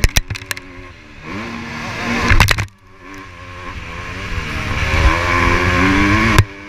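Motocross bike's engine, heard from the bike itself, revving hard on the throttle: its pitch climbs, drops suddenly as the throttle closes about two and a half seconds in, then climbs again and cuts off near the end. A few sharp knocks near the start and a loud burst just before the drop.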